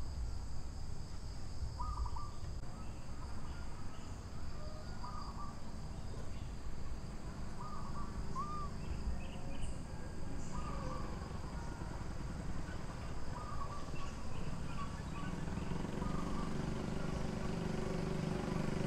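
Outdoor forest ambience: a steady, high insect buzz with a short chirping call repeating every two to three seconds. A low hum rises under it near the end.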